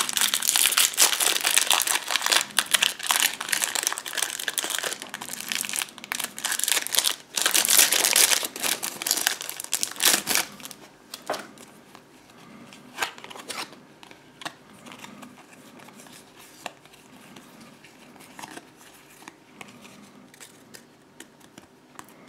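Foil trading-card booster pack crinkling and tearing as it is pulled open by hand for about the first ten seconds. Then it goes much quieter, with scattered light clicks and slides as the stack of cards is handled.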